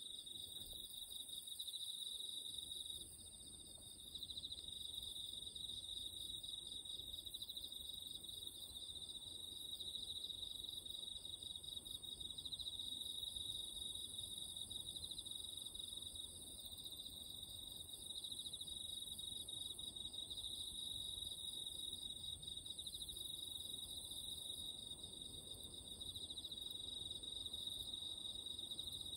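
A night chorus of crickets: a steady, fast-pulsing high trill, with a fainter, higher insect buzz above it.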